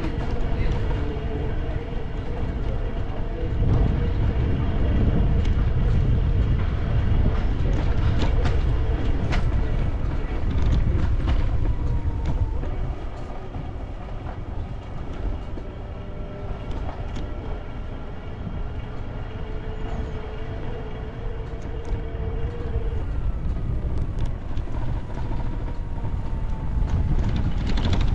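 Outdoor street ambience: a steady low rumble, with a faint humming tone that slowly falls in pitch near the end.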